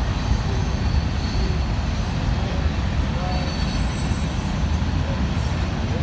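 Manifest freight train's cars rolling past in a steady rumble, with a faint high wheel squeal at times.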